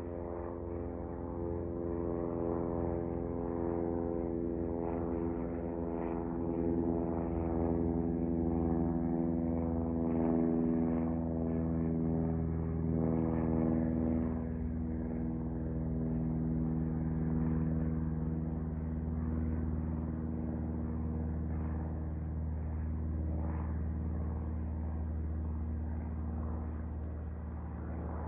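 Small propeller airplane's piston engine and propeller droning steadily as it climbs away after takeoff, swelling slightly in the middle.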